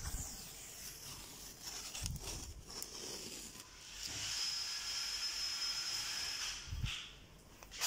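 Masking tape being peeled off a tiled floor beside a freshly siliconed expansion joint, a steady tearing hiss that is most even in the second half, with a few dull thumps.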